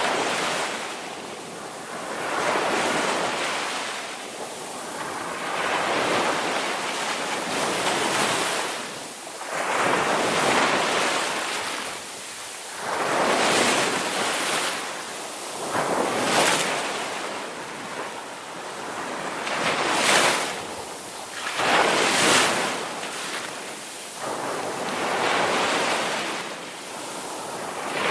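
Ocean surf: waves breaking and washing in, swelling and falling every two to three seconds, with a steady hiss of wind between them.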